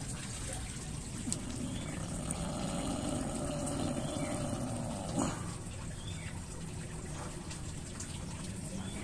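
Water trickling steadily, with light sloshing from a hand moving through a shallow plastic tub of water plants; a brief knock about five seconds in.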